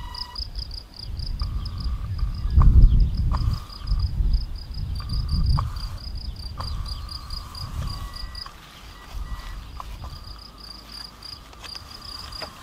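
Crickets chirping in a fast, even pulse over a low rumble that swells and fades. A thin, high steady whine starts and stops several times, with a few faint clicks.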